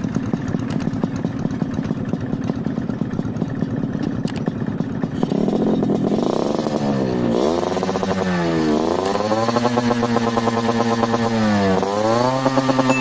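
Yamaha RX-King two-stroke single-cylinder engine running through a Mbah Ranto 'kolong' underbelly exhaust. It idles steadily for about the first six seconds, then is revved in several throttle blips, its pitch rising and falling each time.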